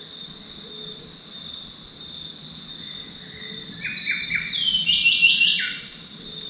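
A songbird singing a run of quick downslurred whistled notes, building to a loud cluster about four and a half to five and a half seconds in, over a steady high-pitched insect drone.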